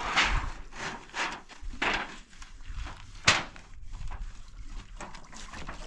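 Wooden boards being scrubbed and handled: irregular short scraping strokes, with one sharp knock about three seconds in.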